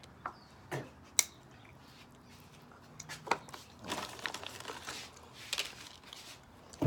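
Sunflower seeds being cracked open with the teeth and chewed close to the microphone: sharp crunches and clicks, one loud crack about a second in, then a quicker run of smaller crackles.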